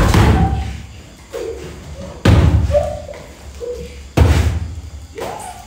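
Three heavy booming thuds about two seconds apart, each followed by a deep rumble that dies away over about a second. Short pitched hums or vocal sounds come between them.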